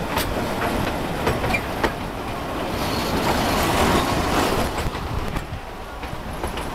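Narrow-gauge passenger carriages rolling past close by, their wheels clacking irregularly over the rail joints. A rush of wheel and rail noise swells in the middle.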